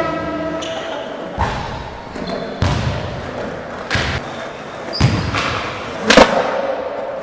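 Skateboard knocking and clacking on a concrete floor in a large hall: about five sharp impacts roughly a second apart, the loudest near the end.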